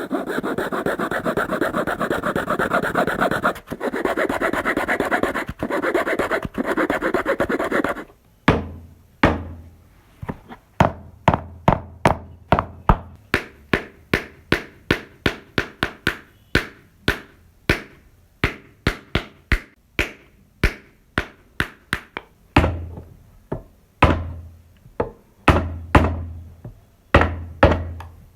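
Sawing through wood for about eight seconds, with one short pause, then a run of sharp hammer strikes about two a second, many with a deep thud under them.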